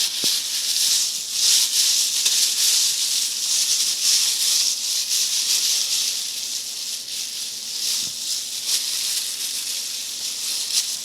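Ribeye steak sizzling in a hot frying pan: a steady, loud, crackling hiss.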